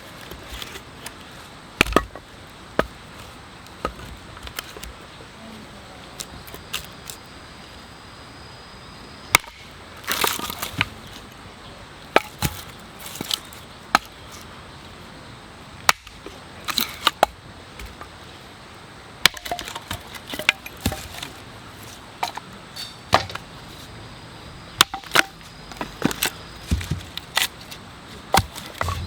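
Firewood being chopped and split: irregular sharp knocks and cracks of a blade striking wood, some in quick runs of several strokes.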